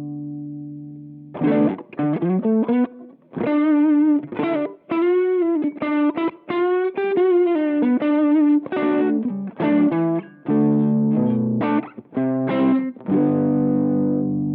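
Electric guitar through a Boss SD-1 Super Overdrive pedal, a mid-forward overdrive. A ringing chord gives way to a single-note lead line with string bends and vibrato, and a sustained chord rings out near the end.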